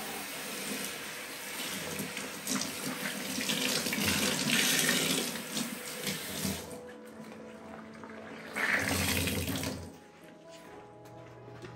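Kitchen tap running water into a sink, easing off about seven seconds in, with a short, louder second rush of water a couple of seconds later.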